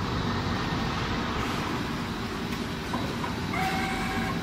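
Automatic cushion tufting machine running in a noisy factory, a dense, rapid, steady clatter. A few steady tones join about three and a half seconds in.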